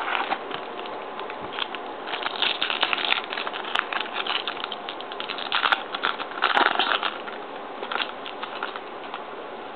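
Hockey trading cards being flipped through quickly by hand: an uneven run of soft papery flicks and rustles, thicker in a few quick bursts.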